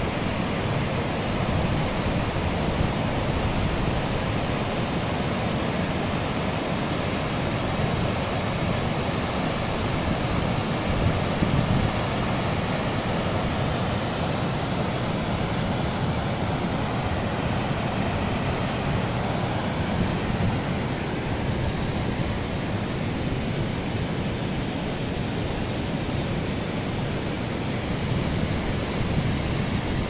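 Mountain waterfall and the stream below it: a steady, unbroken rush of falling water.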